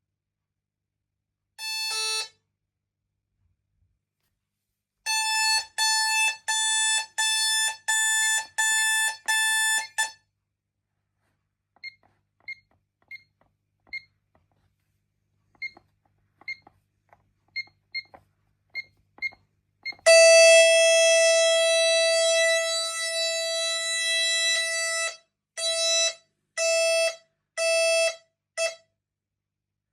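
Pyronix Euro 46 intruder alarm system sounding electronic tones. First comes one short beep, then a run of about nine pulsed beeps at roughly two a second, then a scattering of short, higher pips. Louder than all of these, a lower steady tone sounds for about five seconds and then breaks into four pulses.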